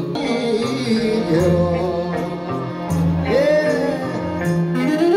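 A Greek song: a man sings a long, wavering line over a band with a steady bass line and a melody instrument.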